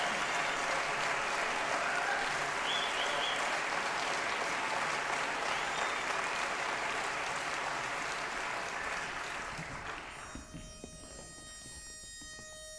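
Theatre audience applauding, the clapping dying away about ten seconds in to a quiet hall with a faint steady hum.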